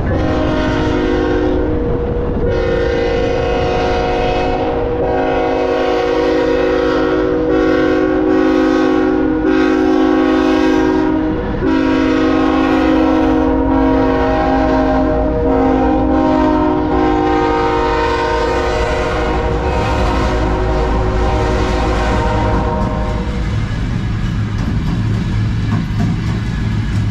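Ferromex diesel freight locomotive's air horn held in a long show-horn blast, a steady chord of several notes with brief breaks about 2 and 11 seconds in. It stops about 23 seconds in, leaving the low rumble of the passing locomotives and rail noise.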